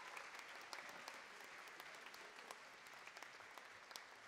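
Audience applauding, many scattered claps slowly dying away.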